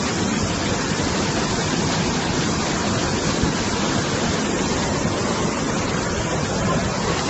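A torrent of muddy floodwater rushing down a rocky gully, making a steady, unbroken rush of water noise.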